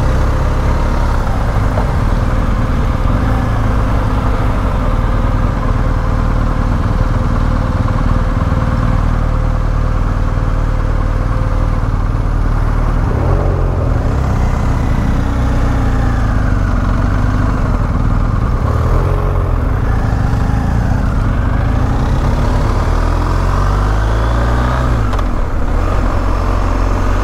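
Motorcycle engine running under way, a steady drone. A few seconds before the end the engine note rises.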